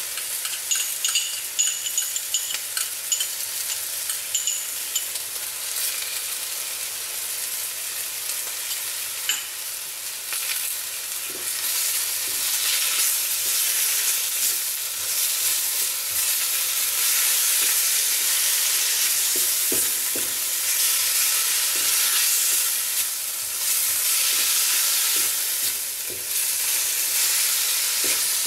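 Pork and napa cabbage sizzling and being stir-fried in a hot cast iron wok, with the chili bean sauce just added. At first the stirring utensil clicks and clinks against the iron. About ten seconds in the sizzle grows louder and then swells and eases in waves as the food is tossed.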